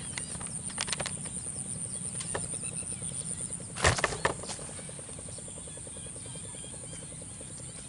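Insects chirping in a steady, high-pitched drone with a rapid trill beneath it, broken by a few clicks in the first second and one loud thump about four seconds in.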